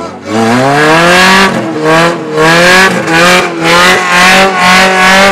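Jeep CJ-style off-roader's engine revving hard as its wheels spin in the dirt. The pitch climbs sharply just after the start, then surges up and down about six times.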